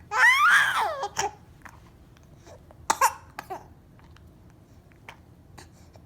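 A baby squealing loudly in a high voice for about a second, the pitch sliding up and down, followed by a few short cough-like bursts around three seconds in.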